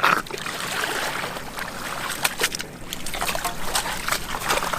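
Shallow muddy water splashing and sloshing as hands grope through it for fish, with a run of short wet slaps and clicks.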